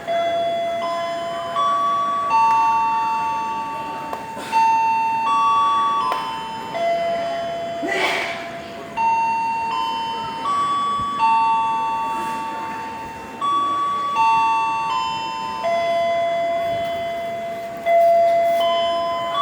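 A slow melody of bell-like chime notes, struck one after another about every second and a half and each fading away. There is a brief rush of noise about eight seconds in.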